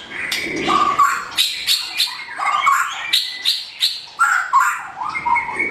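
Pied (blorok) white-rumped shama singing a varied song: quick phrases of whistled notes mixed with sharp, short clicking strokes, with hardly a pause.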